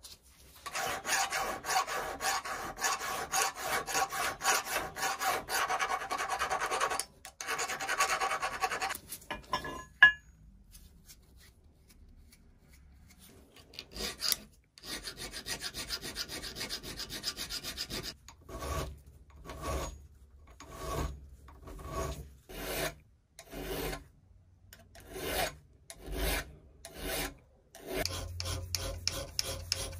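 Hand filing of a pipe cutter's cast metal frame held in a vise, a round file rasping back and forth. Quick, continuous strokes come first, with a sharp knock about ten seconds in and a short pause. Then come single separate strokes about one a second, and near the end fast scraping again.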